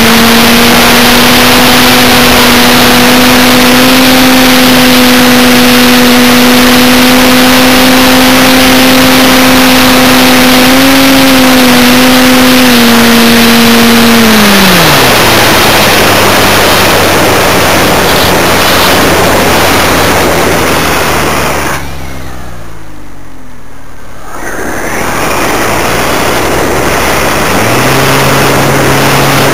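Model aircraft's motor and propeller, heard from a camera on board, over a rush of wind. It holds a steady, high droning pitch, drops to a lower pitch about halfway through, and nearly dies away for a few seconds about two-thirds in. It picks up again near the end.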